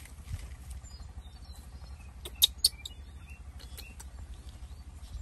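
Baby monkey squeaking: two short, sharp, high squeaks a quarter second apart about two and a half seconds in, with fainter short chirps around them.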